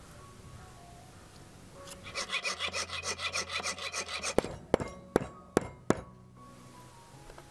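Quick, even rasping strokes on a thin brass lure blank, about six a second for a couple of seconds, followed by five sharp taps as a knife blade is worked against the brass on a wooden block.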